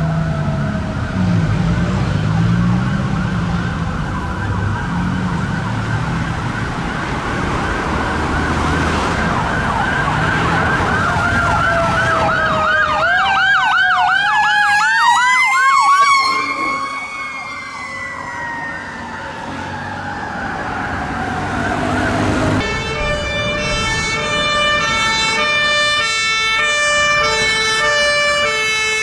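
Fire engine sirens. Two wails rise and fall over each other, one breaks into a fast yelp about halfway and then falls away in a long slow wail. In the last few seconds a siren switches to a tone that jumps between pitches in quick steps.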